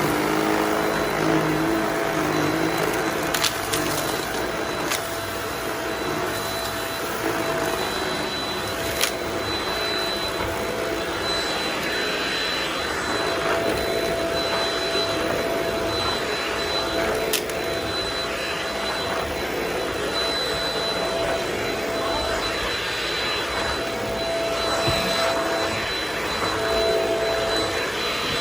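Vacuum cleaner running steadily with a constant whine, with a few sharp clicks in the first half.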